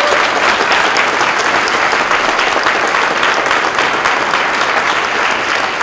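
Audience applauding: a crowd clapping in a dense, steady patter of many hands.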